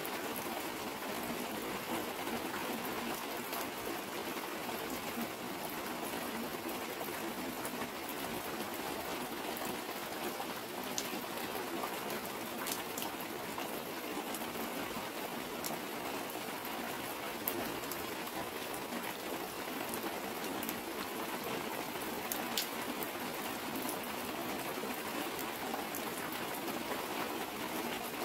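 Heavy rain falling steadily on a clear plastic cover, with water streaming off it in sheets. Now and then a single sharper drop ticks above the steady patter.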